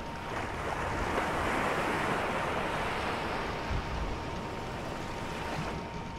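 A rushing wash of noise like surf, swelling about a second in and slowly fading toward the end, over a steady thin high hum.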